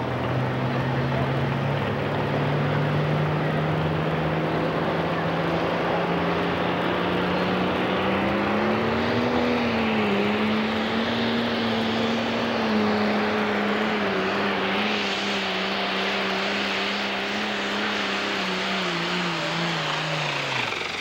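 Pro stock pulling tractor's turbocharged diesel engine running at full power under the load of the sled, its pitch climbing slowly through the first half of the pull and then holding. Near the end the pitch falls away sharply as the engine comes off full throttle.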